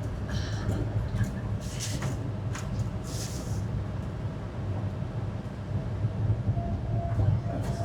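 Steady low rumble of tyres and engine heard from inside a moving car's cabin on a sandy dirt road, with a couple of brief hisses about two and three seconds in.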